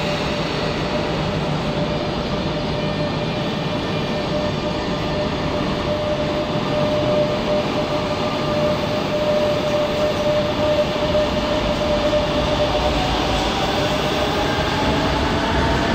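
Renfe class 447 Rodalies electric multiple unit running along the platform: a steady rumble of wheels and running gear with a steady electric whine. In the last few seconds, whine tones rise in pitch.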